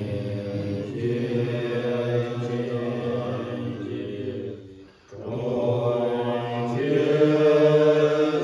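Tibetan Buddhist monks chanting a dedication prayer in unison, many low male voices holding long drawn-out notes. The chant breaks off for a breath about five seconds in, then resumes and grows louder.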